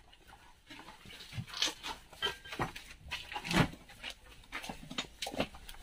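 Irregular footsteps and scuffs on loose rock and gravel as people pick their way through a narrow rock passage.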